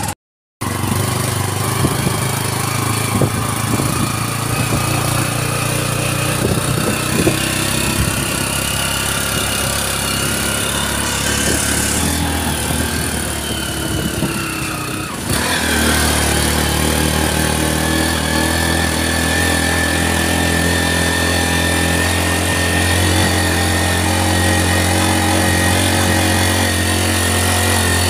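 Motorcycle engine of a sidecar tricycle running steadily while under way, heard from inside the sidecar cab. The engine note shifts to a steadier, slightly louder drone about halfway through.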